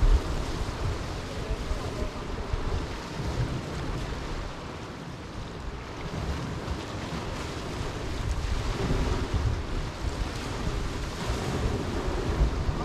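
Small waves breaking and washing over a pebble shore, with wind buffeting the microphone in an irregular low rumble.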